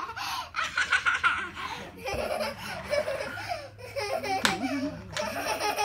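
A young child laughing in repeated bursts of giggles, with a single sharp click about four and a half seconds in.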